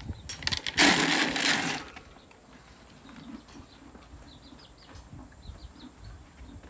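A burst of rushing, rustling noise lasting about a second, with a few clicks just before it, followed by faint high chirps.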